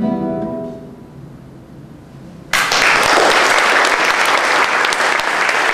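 Nylon-string classical guitar strikes the closing chord of the piece, which rings and fades away. About two and a half seconds in, audience applause breaks out suddenly and continues.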